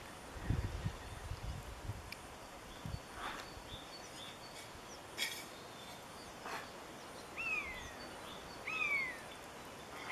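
Faint outdoor background noise. In the second half, three short high animal calls, each falling in pitch, come about a second and a half apart.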